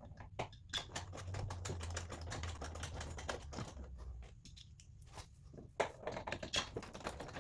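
Quick, irregular light clicks and taps of small metal bolts being handled while threadlocker is put on them, pausing briefly after about four seconds.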